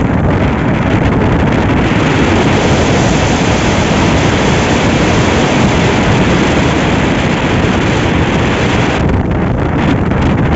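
Loud, steady wind rumble buffeting the microphone. The high hiss thins out near the end.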